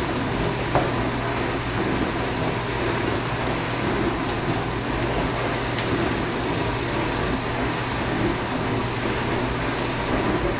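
Dishwasher running with a steady hum. One brief click comes a little under a second in.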